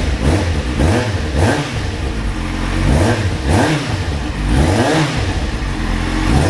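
Kawasaki Z750's inline-four engine revved in quick repeated throttle blips, about two a second. It runs without the knock that had sounded like a rod knock; the cause was an exhaust leak at the header, now cured with new header rings and welded header inlets.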